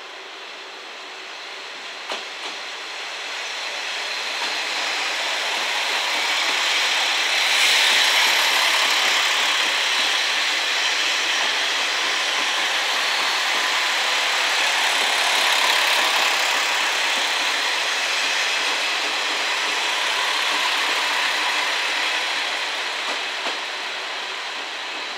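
Five-car JNR KiHa 40-series diesel railcar train (KiHa 40 and KiHa 47 cars) passing close by: diesel engines running and steel wheels rolling on the rails. It swells over the first few seconds, holds loud, and eases off near the end, with a few sharp clicks from the wheels over the rail joints.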